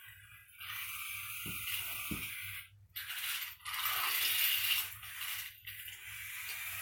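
Small robot car's geared drive motors whirring in spurts of a second or two, stopping and starting as it steers away from barriers, with two low knocks about a second and a half and two seconds in.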